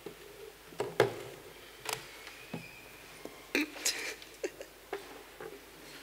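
Scattered clicks and knocks of equipment being handled at the lectern, the loudest about a second in and several more in a cluster a little past halfway.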